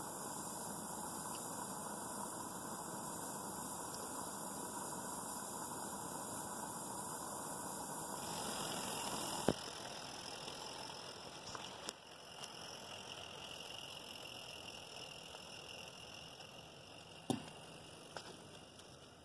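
Regner Konrad live-steam locomotive running along garden-railway track: a steady hiss and rattle that grows fainter in the second half, with a few sharp clicks.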